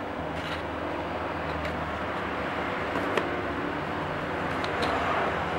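Steady background road-traffic noise with a low engine hum that slowly grows louder, and a few faint small clicks.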